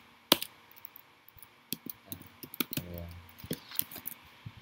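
Computer keyboard being typed on: scattered, uneven key clicks, the sharpest about a third of a second in.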